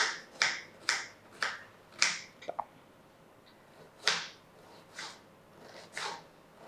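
Knife chopping an onion into small pieces: about six quick cuts, roughly two a second, then a short pause and a few slower cuts.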